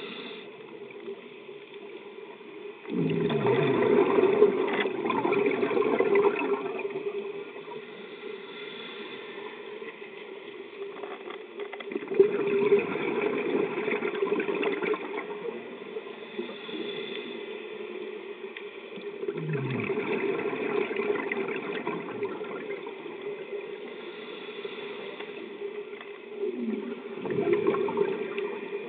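Scuba diver's regulator breathing underwater: four loud rushes of exhaled bubbles, one about every seven to eight seconds, each lasting two to three seconds. A softer hiss sits between them.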